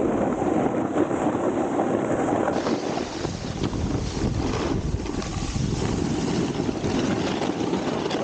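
Snowboard sliding and scraping over hard, icy snow, a continuous rough rush mixed with wind noise on the camera microphone.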